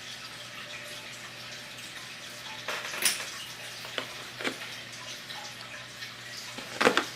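A few light clicks and taps of plastic clipper guide combs being handled, over a steady faint hiss.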